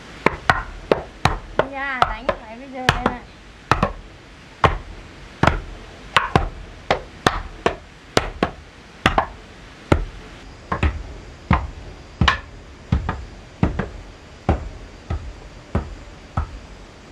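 Chopping: a blade striking a board or block in repeated sharp strokes, about two a second and unevenly spaced. A short wavering pitched sound comes in about two seconds in.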